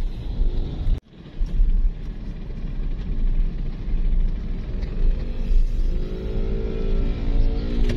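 Steady low road and engine rumble of a car heard from inside its cabin while driving slowly. The sound drops out suddenly for an instant about a second in. A few held tones come in near the end.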